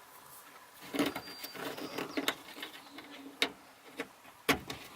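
Plastic push-pin trim clips being fitted into a car's interior trim panel: handling and rustling with several sharp plastic clicks, the loudest near the end.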